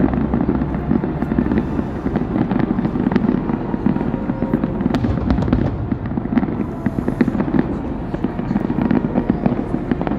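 Fireworks display: many sharp bangs and crackles coming thick and fast over a continuous rumble of bursts.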